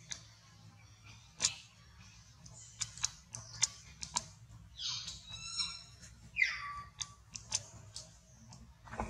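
Dry leaves crackling and rustling in sharp clicks as a baby macaque moves over them. There are two short calls that fall in pitch, one about five seconds in and one about six and a half seconds in.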